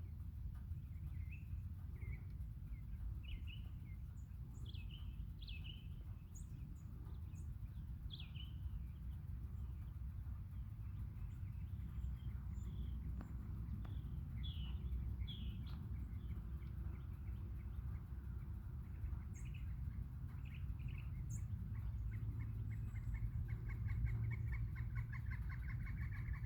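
Wild birds chirping with short, scattered calls. Near the end comes a fast, even run of repeated notes. A steady low rumble runs underneath.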